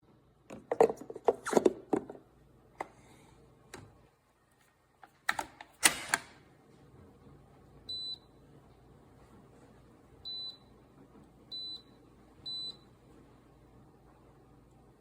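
A run of sharp clicks and knocks from the machine being handled, then four short high-pitched beeps from the AIRMSEN Grind & Brew coffee maker's touchscreen controls.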